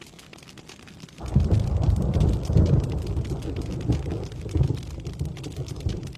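Steady rain falling, with a thunderclap about a second in that breaks into a low rolling rumble and slowly fades away.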